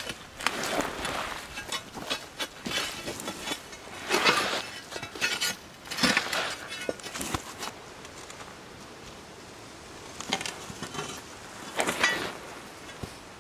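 Metal pry bar scraping and clinking against a large rock and a log as they are levered over dirt, in a series of irregular scrapes and knocks.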